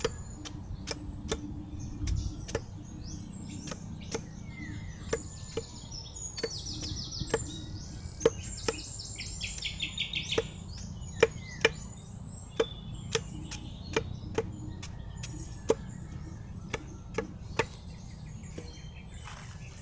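Machete blade chopping and paring a lakatan banana corm, repeated sharp chops at about one or two a second as the outer layer is cleaned off. Birds chirp in the background, with trills in the middle.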